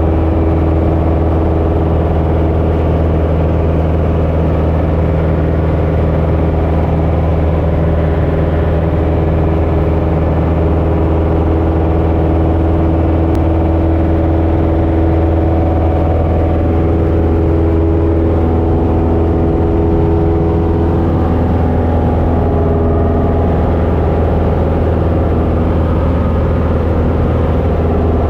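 Light aircraft's piston engine and propeller droning steadily, heard from inside the small two-seat cabin in cruise flight.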